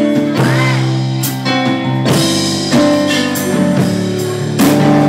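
A live blues band playing: electric guitar and drum kit under long held notes, with a few bent notes.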